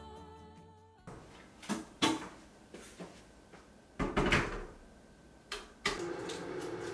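Kitchen cupboard doors and drawers opening and closing: a string of separate knocks and clicks. The loudest come about two seconds in and around four seconds in.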